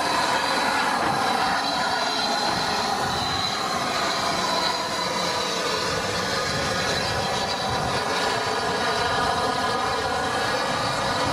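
Rebuilt Bulleid West Country class steam locomotive 34046 Braunton standing with steam hissing steadily: a continuous hiss with a thin high tone running through it.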